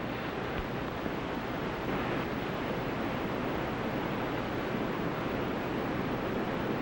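Steady wash of ocean surf breaking on a beach, an even rushing noise with no distinct events.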